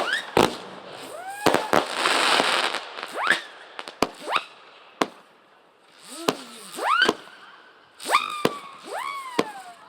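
Consumer fireworks going off: a string of sharp bangs and pops, a crackling stretch about two seconds in, and short whistling tones that shoot up and then slide down between the bangs.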